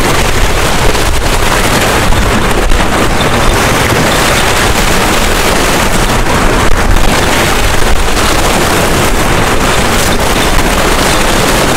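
Wind buffeting the microphone: a loud, steady rushing noise with a heavy low rumble, over sea washing against the shore rocks.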